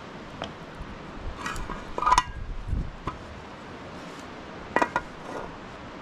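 Metal cookware clinking: a metal ladle knocking against a steel cooking pot, then a pan set down on top of the pot as a lid, a few sharp clanks with brief ringing, the loudest about two seconds in.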